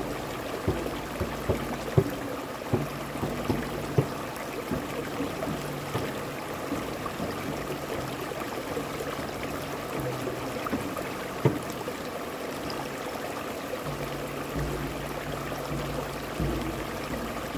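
Shallow stream rushing over rocks, with hand strikes on a frame drum: a fairly quick beat for the first several seconds, only scattered strikes through the middle, and deeper ringing hits near the end.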